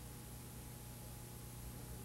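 Faint steady hiss with a low electrical hum and a thin, high steady tone beneath it: the background noise of the recording, with no work sound standing out.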